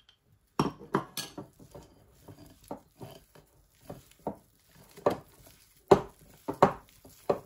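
Glass mixing bowl knocking and clinking as hands knead a crumbly milk-powder dough in it: about a dozen irregular knocks, the loudest in the last couple of seconds.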